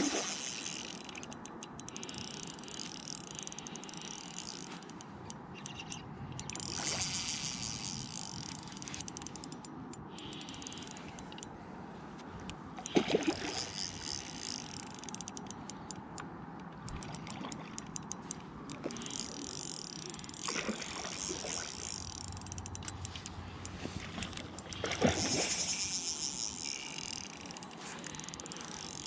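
Ultralight spinning reel ticking and whirring in bursts of a couple of seconds each, as a large trout is played on light line. A few sharp knocks come in between.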